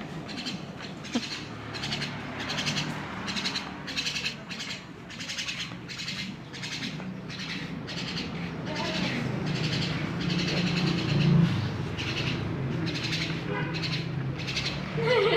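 Javan myna (jalak kebo) giving a long series of harsh, rasping calls, about two a second, over a low steady hum.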